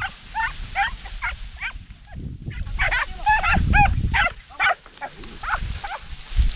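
Podenco hound yelping in a quick series of short, high cries, typical of a hound giving tongue on a rabbit's scent in the scrub. The yelps break off for a moment about two seconds in, then resume, over a low rumble.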